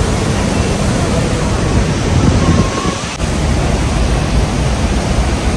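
Steady rushing of water from Niagara's Horseshoe Falls pouring down close by, heard from the tunnels behind the falls, with a short dip about three seconds in.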